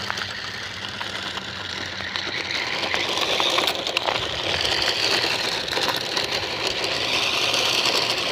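Off-road RC car's motor whining as the car drives on slick, icy ground, getting louder from about three seconds in.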